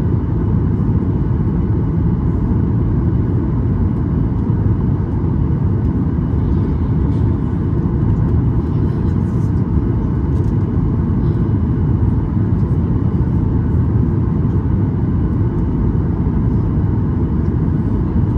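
Steady cabin roar inside a Boeing 737 MAX 8 in flight: airflow and CFM LEAP-1B engine noise, heaviest in the low range, with a faint steady hum above it.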